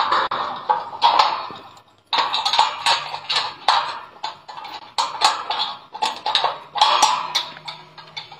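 Repeated sharp metal clanks and rattles from a steel gate's sliding barrel bolt and padlock being worked by hand, with a short pause about two seconds in.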